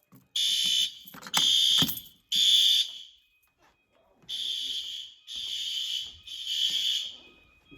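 Fire alarm horns sounding in full alarm in a temporal-three pattern. Three short high-pitched blasts come about a second apart, then a pause, then three more, quieter.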